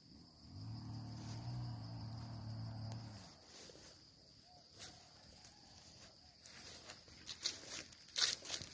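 Insects chirring in a steady high tone throughout. A low, steady hum fills the first three seconds. From about two-thirds of the way in, footsteps crunch through grass and dry leaves, loudest near the end.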